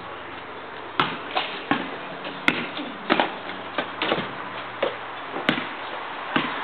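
Basketball bouncing on asphalt and striking a hoop's backboard and rim: a dozen or so irregular knocks and thuds, the sharpest about two and a half seconds in.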